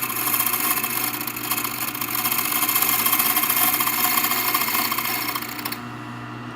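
Motorized key-cutting machine running, its cutter milling the first cut of a Schlage key blank to a depth of six. The high grinding noise of the cut stops suddenly near the end, leaving the motor's steady hum.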